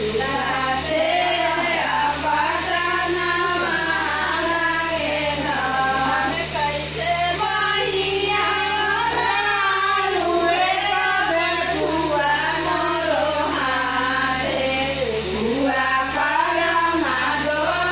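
Female voices singing a song without pause, over a steady low hum.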